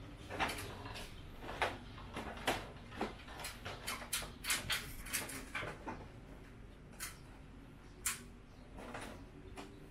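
Irregular plastic clicks and knocks from hands working in the open wiring compartment of a wall-mounted split air-conditioner indoor unit, handling its wires and terminal cover. The clicks come thickest a few seconds in.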